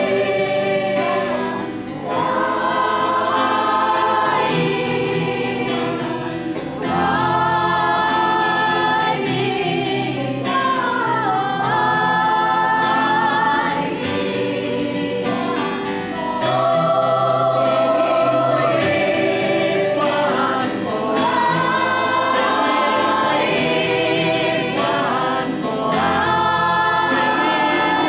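Mixed-voice choir of men and women singing in several-part harmony, in phrases of a few seconds with short dips between them.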